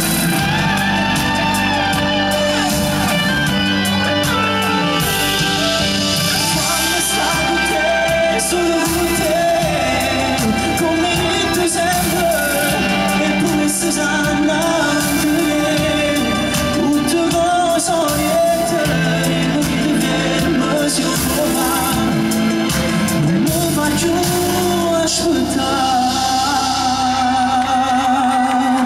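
Live pop song played by a band: a man sings into a microphone over electric guitar and keyboards, loud and continuous.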